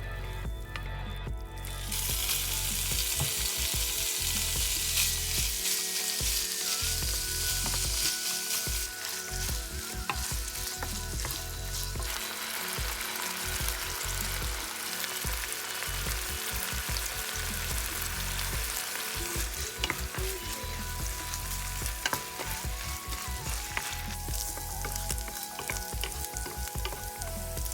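Food sizzling in a hot frying pan. The hiss starts about two seconds in and eases off near the end, with scattered clicks of stirring in the pan.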